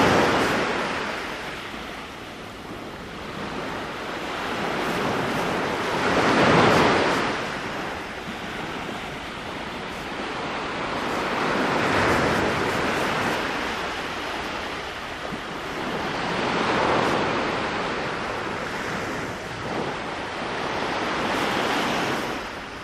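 Small sea waves breaking on a sand-and-pebble beach, the surf swelling and falling away about every five seconds with a steady wash between.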